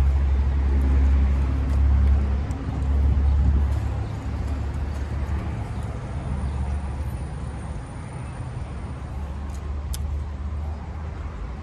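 A motor vehicle's engine running close by, a low rumble that eases off after about four seconds and continues more quietly.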